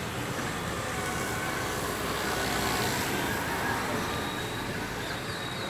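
Steady outdoor background noise, a rumble and hiss with no distinct events, swelling a little near the middle.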